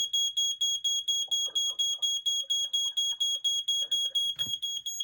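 First Alert SA67D smoke alarm's piezo horn sounding on test: a shrill high beep pulsing rapidly and evenly, about five beeps a second, in a continuous pulse rather than the Temporal-3 pattern.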